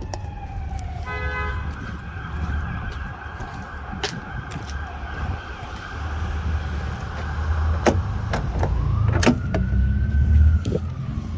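An emergency vehicle siren wails, its pitch sweeping down at the start and rising again about three quarters of the way in. A short blare sounds about a second in. Under it runs a low, steady rumble, with a few sharp knocks.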